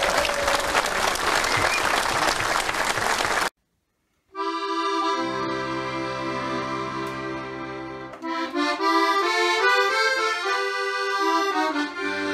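Accordion music: held bass notes under a melody that starts moving from about eight seconds in. It begins after a brief silence about four seconds in, and before that a dense, noisy sound cuts off suddenly.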